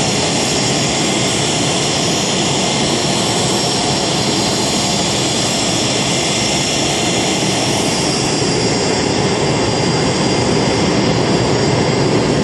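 Aircraft turbine engine running steadily: a loud, even rush of noise with a thin high whine on top.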